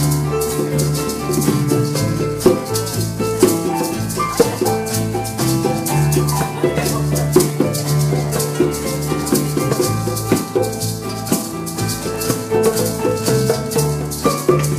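Live band playing an instrumental stretch of a rock song: keyboard, electric bass and acoustic guitar, with a maraca shaken steadily in time over the top.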